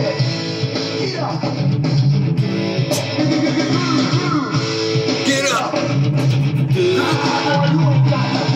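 Funk metal song playing from a vinyl record: electric guitar over bass and drums, with some singing.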